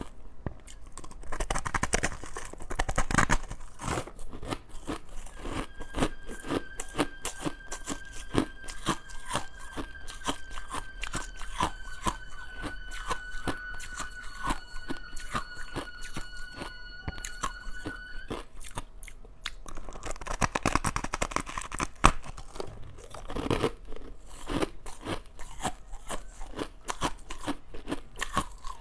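Crushed ice being bitten and chewed close to the microphone, a dense run of crisp crunches with a few louder bites. A steady high tone sounds alongside for about twelve seconds in the middle, sinking slightly in pitch before it stops.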